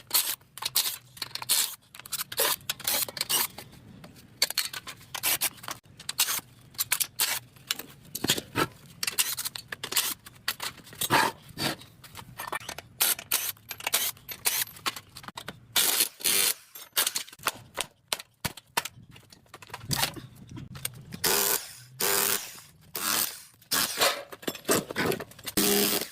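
Hand tools knocking, clanking and scraping against the metal parts of a 3 HP DC shunt motor as it is taken apart. The strikes and scrapes are irregular and come in quick clusters with short pauses.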